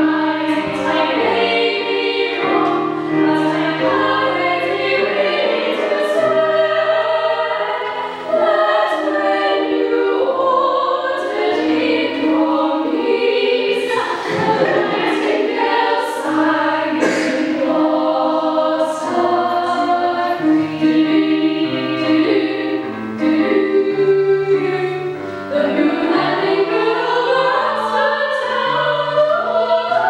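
Female vocal ensemble singing in close harmony, several parts at once, over sustained low keyboard notes.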